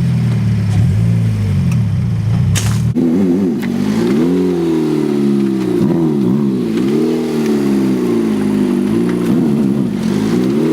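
Car engine revving: a lower, steady note at first, then from about three seconds in a higher note that climbs and falls again and again as the throttle is blipped.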